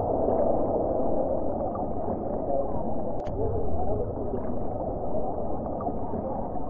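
Distant jet roar from a nine-ship formation of Surya Kiran Hawk jet trainers flying a display: a dull, steady rush with a faintly wavering pitch.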